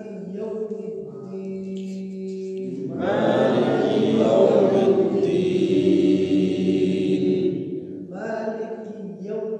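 A group of voices chanting in unison over a steady held drone. The chant swells fuller and louder about three seconds in and eases back near the end.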